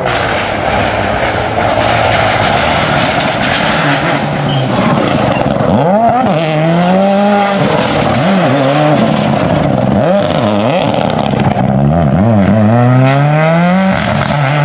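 Rally car engine revving hard. The opening seconds are a loud even rush; from about six seconds in the engine pitch climbs and drops back again and again as it runs up through the gears.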